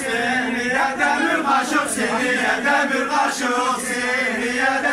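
A group of men singing a folk dance song together in unison over a steady held tone.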